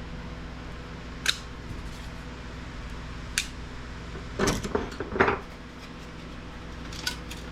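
Hand tools clicking and clattering against an electronic device's casing as it is taken apart: single sharp clicks, then a short burst of louder clatter about halfway through, over a steady low hum.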